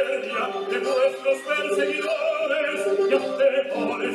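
Opera music: a voice singing over instrumental accompaniment, with held notes under a moving melody.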